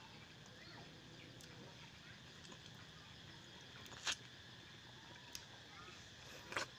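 Quiet eating sounds of ripe mango: two short, wet bites or slurps close to the mouth, about four seconds in and again near the end, as the flesh is bitten and sucked off the skin, over a faint steady background.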